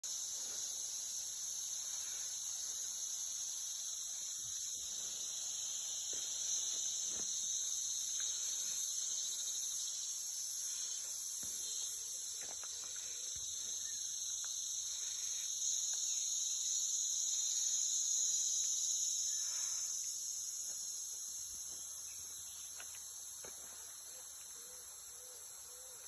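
Dense chorus of rainforest insects: a steady, shrill, high-pitched buzz in several layers at once, growing somewhat fainter over the last few seconds.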